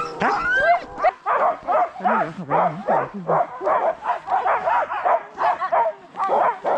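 A team of sled dogs barking and yelping in quick succession, several calls a second, with rising whines in the first second.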